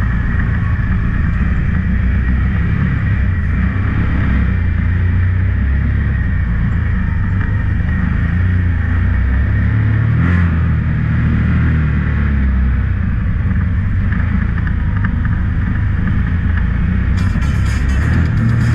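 Can-Am Maverick X3's turbocharged three-cylinder engine running under load, its revs rising and falling, heard from inside the open cab.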